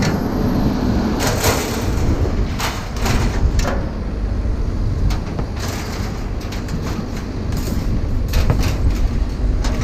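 A steady low rumble with irregular metallic clanks and rattles scattered through it.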